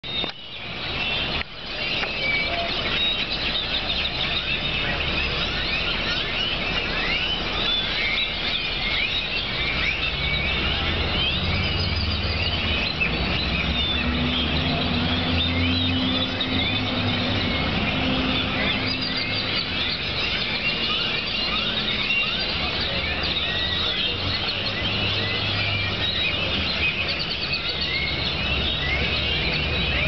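A large flock of birds in a tree, many calling at once in a dense, continuous chatter of short, high squeaks and whistles.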